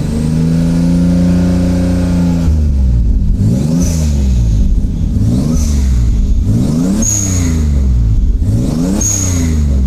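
Toyota Supra's turbocharged 2JZ straight-six held at high revs for about two and a half seconds, then revved up and let fall four times, about every second and a half, with a short high hiss near the top of each rev.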